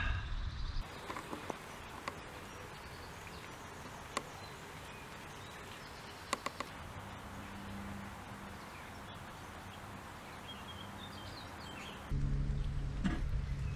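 Soft, steady outdoor ambience by a reedy pond: an even hiss with a few sharp ticks and faint high bird chirps. Louder low rumbling noise fills the very start and the last second or so.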